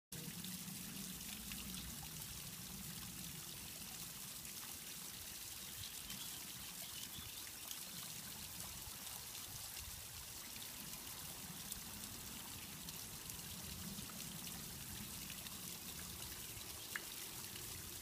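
Small backyard waterfall trickling and splashing steadily over stacked stones into a pond, with one faint click near the end.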